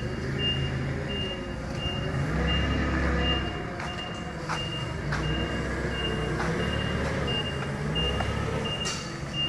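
Forklift engine running low and steady while its warning beeper sounds a single high beep about one and a half times a second. A few light knocks come through in the second half.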